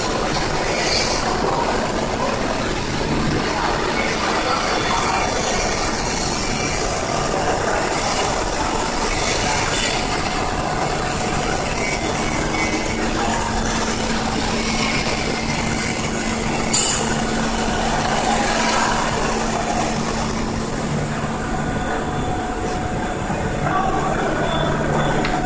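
Steady mechanical workshop noise with a low hum, and a single sharp click partway through.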